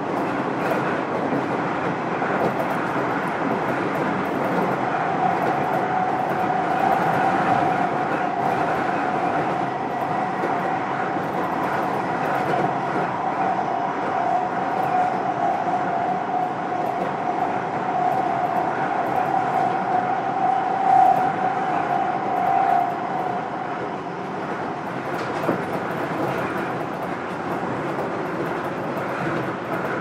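JR West 201 series electric commuter train running between stations, heard from inside the passenger car: steady rolling and running noise, with a steady whine from about five seconds in until about twenty-three seconds in.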